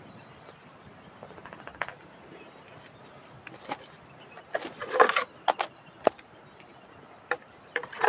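Irregular sharp knocks, snaps and rustles from someone working by hand among the branches of a durian tree. The sounds cluster about halfway through and again near the end.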